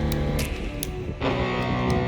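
Background rock music with electric guitar. It dips about a second in, and a new chord comes in about a quarter of a second later.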